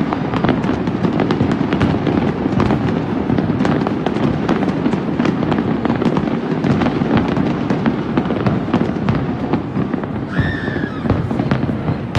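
A dense fireworks barrage: continuous rumbling booms with many sharp cracks and crackles, without a break. About ten seconds in, a brief high-pitched sound rises over the barrage.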